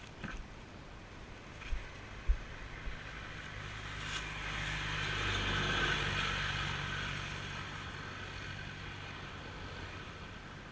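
A motor vehicle passing by on the street, its sound growing louder for a few seconds, peaking mid-way and then fading away. Two short low thumps come about two seconds in, just before it.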